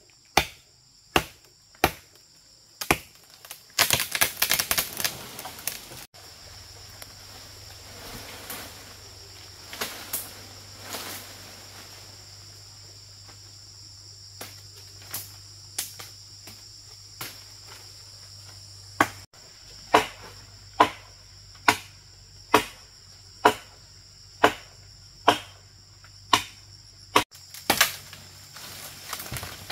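Repeated sharp strikes of a hand tool, about one a second, in a run at the start and another from about two-thirds of the way through, typical of chopping or hammering during bridge repair work. A short burst of rustling noise comes about four seconds in, and insects trill steadily behind.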